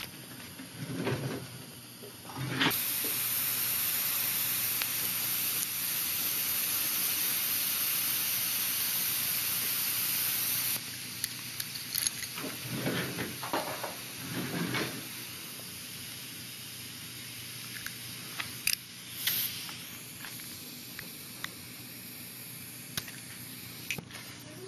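Dental equipment hissing with a steady rush of air, most likely suction or an air spray at the extraction site. It starts suddenly about three seconds in and cuts off sharply about eight seconds later, followed by a few scattered clicks and soft knocks.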